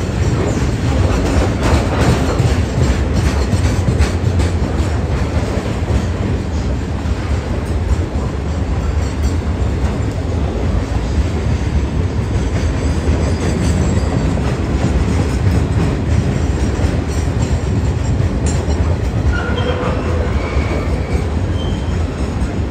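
Freight wagons loaded with steel coils rolling past on the track: a steady rumble and clatter of wheels on rail. A few brief wheel squeals come near the end.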